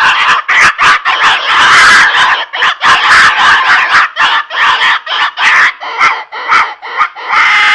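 Hand-held mouth call blown to imitate the squealing of a wild pig: loud, harsh squeals broken into a rapid run of short calls, choppier in the second half, cut off abruptly at the end.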